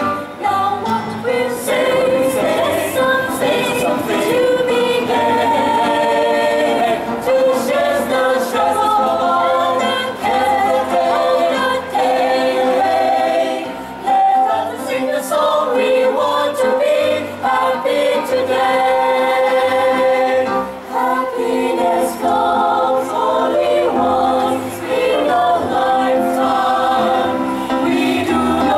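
Mixed choir of men's and women's voices singing together in several parts, dipping briefly between phrases.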